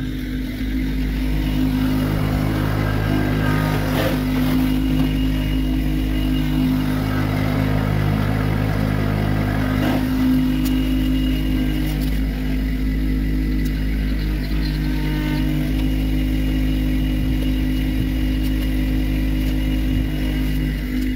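Kubota 26 hp compact diesel tractor engine running steadily, with a few faint knocks.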